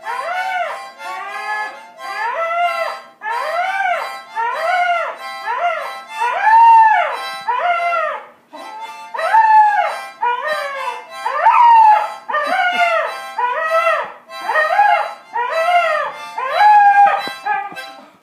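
Tibetan Terrier howling along to a harmonica: a long run of short rising-and-falling howls, about one or two a second, with a brief break around the middle.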